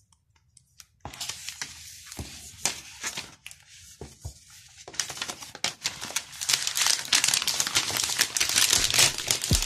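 Thin plastic protective film wrap being peeled off a new iPad Pro and handled, crinkling. It starts after a second of near silence, with scattered crinkles at first, then grows louder and denser about halfway through.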